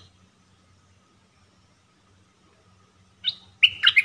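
A caged decoy bulbul is mostly quiet, then gives one short call about three seconds in. Right after it comes a quick run of harsh, chattering notes that sweep in pitch, lasting to the end.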